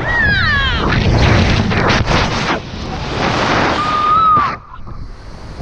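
A bungy jumper screaming in freefall: a long scream falling in pitch at the start, then loud wind rushing over the microphone, with a shorter high cry about four seconds in.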